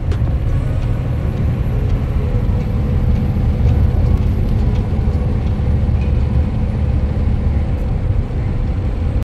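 Steady low rumble of a semi truck cruising at highway speed, heard inside the cab: engine drone mixed with tyre and road noise.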